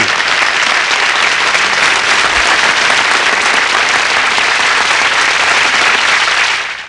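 Audience applauding steadily, then fading out just before the end.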